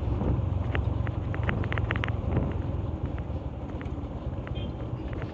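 KTM motorcycle on the move, with wind buffeting the helmet-mounted microphone as a steady low rumble. A quick run of sharp clicks comes in the first couple of seconds.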